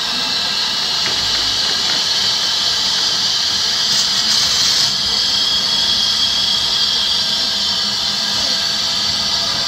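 LMS Stanier Black Five steam locomotive standing with steam hissing steadily from around its cylinders, a high-pitched hiss that swells briefly about four seconds in.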